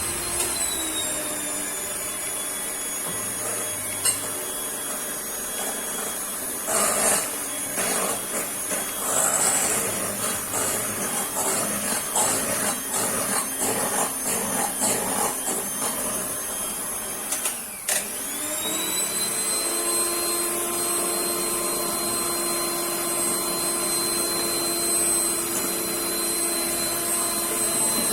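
Electric mixer beating eggs with sugar and oil into a cake batter: a steady motor whine with some irregular rattling in the middle. About two-thirds of the way through it briefly slows and spins back up to speed.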